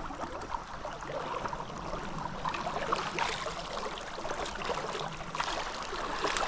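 A mountain trout stream running and gurgling over rocks, with scattered small splashes.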